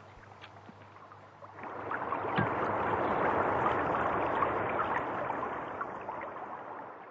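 Sound effect of running water, like a stream, swelling in about a second and a half in and fading away near the end, over a low hum.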